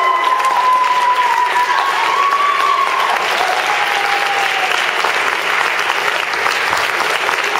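Theatre audience applauding steadily, dense clapping with a long held cheer over it for the first three seconds.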